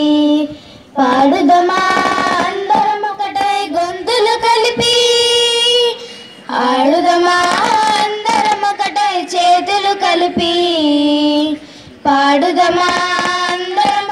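A group of schoolgirls singing a children's song together into microphones, in long phrases of about five seconds with brief pauses between them.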